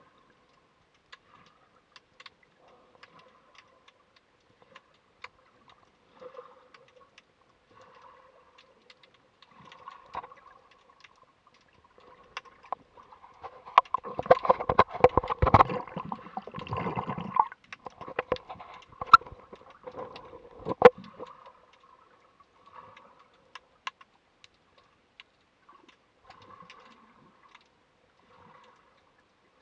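Water sound picked up by a camera held underwater: scattered clicks and crackles throughout, with a louder stretch of rushing water and knocks against the camera for several seconds around the middle.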